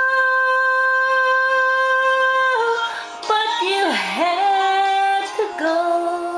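A woman singing without words: one long held note for about two and a half seconds, then a run of sliding, ornamented notes that swoops down low about four seconds in and climbs back up.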